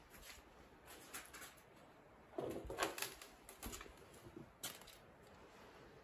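Faint footsteps with scattered knocks and crunches of debris underfoot, loudest in a short cluster about two and a half seconds in.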